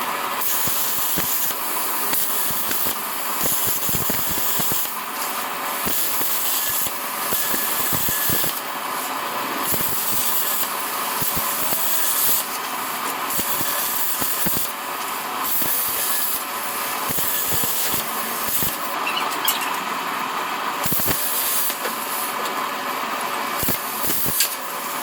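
Plasma cutter running, a steady hiss with frequent small crackling clicks throughout.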